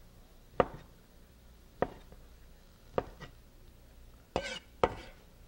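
Large chef's knife cutting ham slices on a wooden cutting board: single sharp knocks of the blade on the board about a second apart, with a short scrape near the end.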